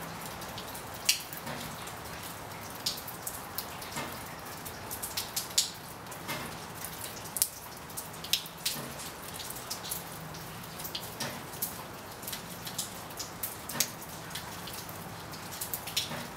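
Steady rain: a constant hiss with sharp, irregular taps of single drops striking close by.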